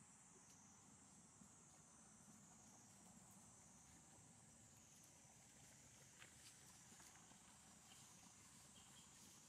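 Faint, steady high-pitched insect chorus that wavers a little in pitch, with a few soft clicks in the second half.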